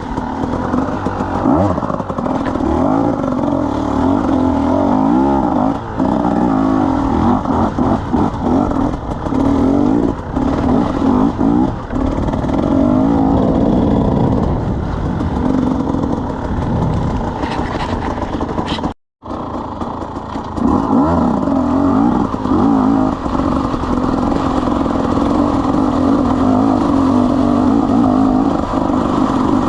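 KTM 300 EXC two-stroke single-cylinder enduro motorcycle engine running, its revs rising and falling again and again. The sound cuts out completely for a moment a little past halfway.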